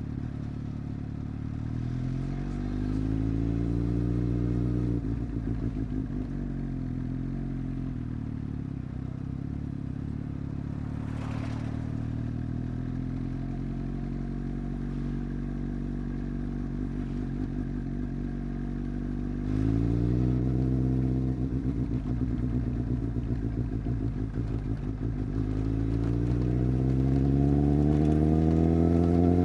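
Inline-four superbike engine accelerating hard, its pitch sweeping up three times: about a second in, around twenty seconds in and near the end, with steadier running between.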